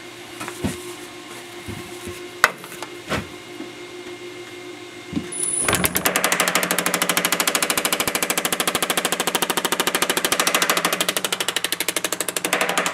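Power hammer shrinking a sheet-metal panel: after a steady hum and a few light knocks, the hammer starts about six seconds in and strikes rapidly and evenly as the metal is fed under its dies, stopping at the very end.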